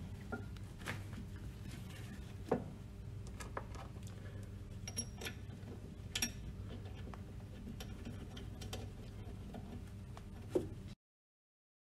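Scattered light metallic clicks and a few ringing clinks from metal pump parts being handled and fitted at the shaft and seal cover, over a steady low hum. The sound cuts off abruptly near the end.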